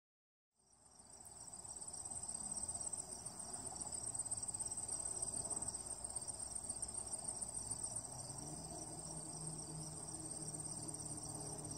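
Chorus of insects trilling, a continuous high-pitched sound that fades in out of silence about a second in and holds steady over a faint low rumble of background noise.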